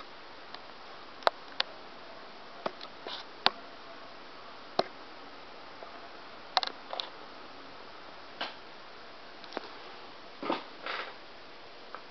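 Steady faint hiss broken by scattered sharp clicks and a few short soft rustling bursts.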